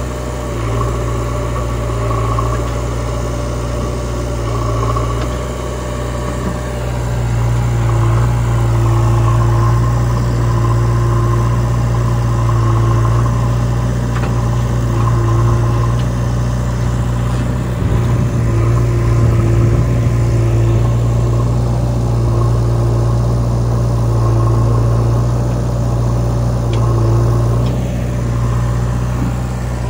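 Diesel engines of a JCB 3DX backhoe loader and a Sonalika tractor running steadily close by, the engine note swelling and easing every few seconds and turning rougher for a couple of seconds a little past the middle.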